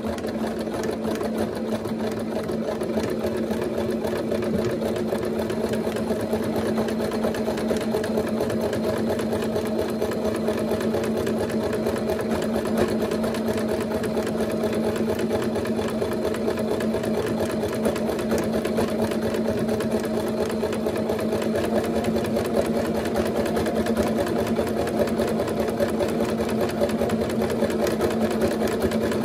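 Singer Starlet 6680 sewing machine stitching a wide decorative embroidery stitch through layers of fabric and wadding. It starts up at once and runs at a steady speed with a fast, even needle rhythm, not labouring on the thick layers.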